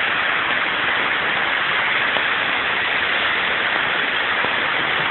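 Heavy rain mixed with hail pouring down, a steady dense hiss.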